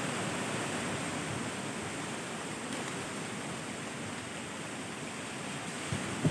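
Strong wind rushing through trees, a steady hiss that holds without let-up.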